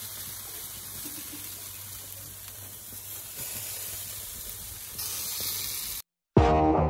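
Marinated bone-in meat chops sizzling on a barbecue grill, a steady hiss. About six seconds in it cuts off, and music begins near the end.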